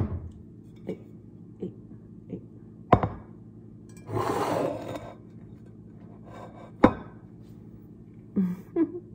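Kitchen clatter of cookware being handled: a series of sharp knocks and thunks, the loudest near the end, with a second-long rustling noise about four seconds in.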